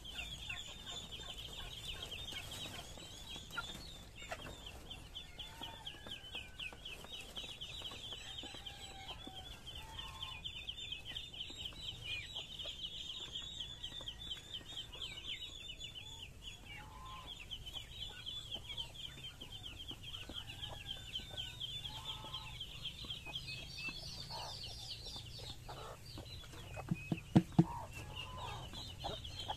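Chickens clucking now and then over a steady, rapid high-pitched chirring, with a few sharp knocks close together near the end.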